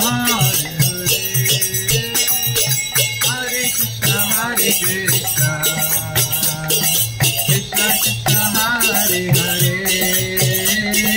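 Kirtan music: small brass karatal hand cymbals clashing in a fast, steady rhythm over a two-headed mridanga drum beating a repeating pattern.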